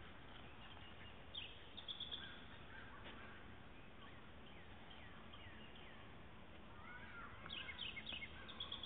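Faint birdsong: scattered chirps and short downward-sliding calls, a few about a second and a half in and a busier cluster near the end, over a steady low outdoor hiss.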